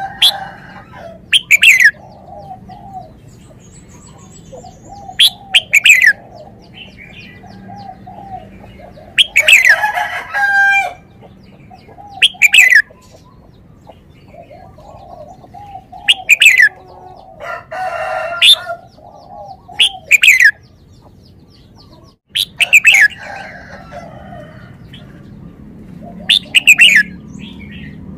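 Caged red-whiskered bulbul singing: short, loud phrases of quick falling whistles, repeated every two to four seconds, over a steady background of softer warbling bird calls.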